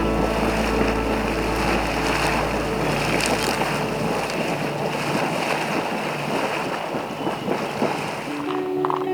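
Steamboat Geyser venting in a minor eruption: a steady rushing and hissing of steam and splashing water. Background music fades under it and comes back near the end.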